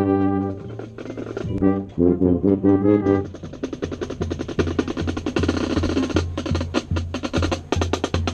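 High school marching band playing: loud sustained brass chords that give way about three seconds in to the percussion section, with rapid snare strokes and rolls over a low tone pulsing about three times a second.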